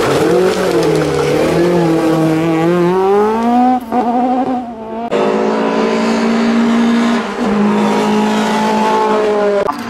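Audi hill-climb race car's engine under hard acceleration, its note rising in pitch for several seconds. After a brief quieter gap it cuts in suddenly as a steady, high note at full throttle, with one short dip like a gear change.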